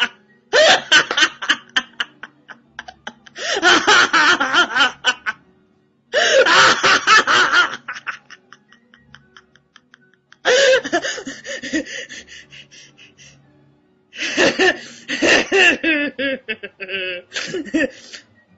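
A woman laughing uncontrollably in five long fits of rapid, breathy ha-ha pulses, with short near-silent pauses between the fits.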